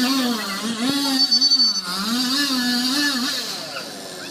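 JCB backhoe loader's diesel engine revving under load as the front bucket pushes into a fallen tree, its pitch rising and falling in smooth swells, then easing off near the end.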